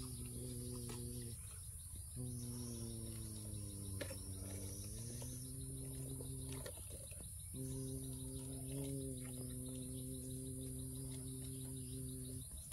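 A low hummed drone, like an engine imitation, held in long stretches with short breath-like pauses; its pitch dips and rises again about four seconds in. Faint insect chirping goes on behind it.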